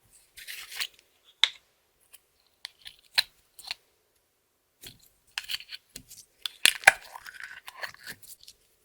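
Hands working slime, giving sticky clicks, pops and short crackling bursts at an irregular pace, with brief pauses between. The sounds are busiest and loudest about seven seconds in.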